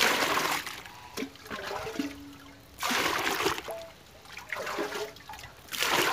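Water poured from a plastic bowl into a plastic bucket: three splashing pours about three seconds apart, each lasting about half a second.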